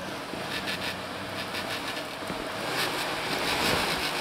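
Off-road 4x4 engine running as the vehicle drives, under an uneven rushing and clattering noise that gets louder about three seconds in.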